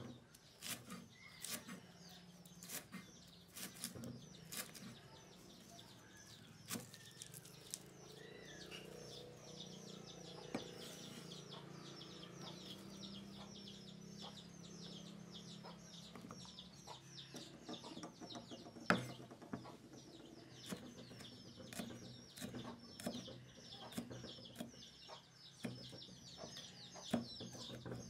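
Knife chopping green onion stalks and red chili peppers on a wooden cutting board: runs of sharp taps at the start and through the second half, with a pause in between. Birds chirp continuously and chickens cluck in the background.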